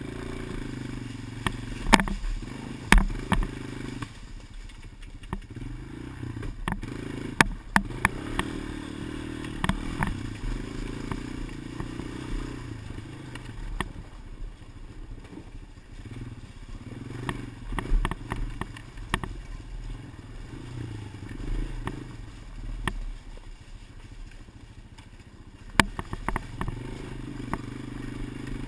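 Vehicle engine running and changing speed, recorded by a helmet-mounted GoPro Motorsports Edition. Sharp clicks break in at irregular moments every few seconds. This is the clicking noise on the camera's recording that the owner wants GoPro to look at as a possible fault.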